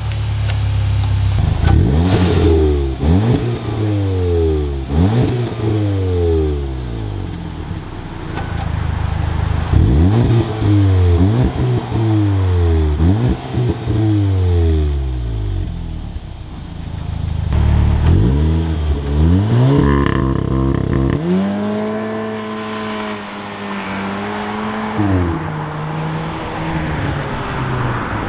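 VW Golf R Mk7.5's 2.0-litre turbocharged four-cylinder revved through its exhaust in repeated quick blips from idle, each rising and falling. Near the end the revs climb and are held steady for about four seconds, as on launch control, then drop away.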